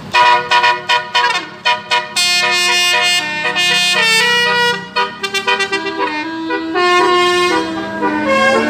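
A bus's telolet horn, a 12-note Basuri set of musical horns, playing a melody. It opens with a run of short staccato toots, then moves on to longer held notes that step up and down in pitch.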